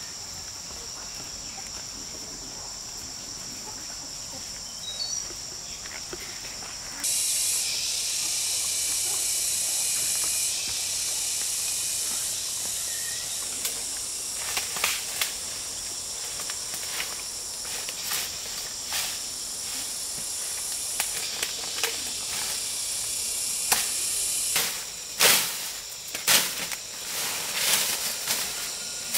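A steady high insect drone that grows louder about seven seconds in, then scattered crunches through dry bamboo leaves and twigs, and near the end a few sharp machete chops cutting a bamboo shoot.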